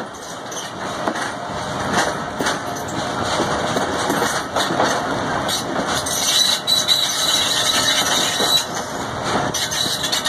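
Passenger train coach running over the rails, its wheels rumbling and clicking over rail joints and points. A high-pitched squeal runs for a few seconds past the middle.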